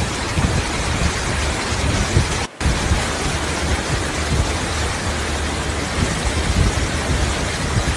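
Fast-flowing floodwater rushing, a loud steady wash of noise with irregular low rumbles underneath; it drops out briefly about two and a half seconds in.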